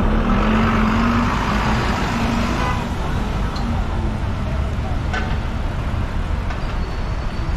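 Busy street traffic: a double-decker bus's engine hums close by for the first couple of seconds over a steady rumble of passing cars and vans. There is a brief click about five seconds in.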